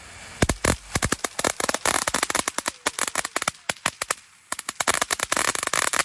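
Firecrackers going off in a rapid, irregular string of sharp bangs, starting about half a second in, with a brief pause a little after four seconds before the bangs resume.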